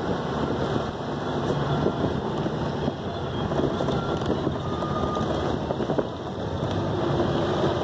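Moving vehicle running along a rough road, a dense rumble of engine and road noise with wind buffeting the microphone.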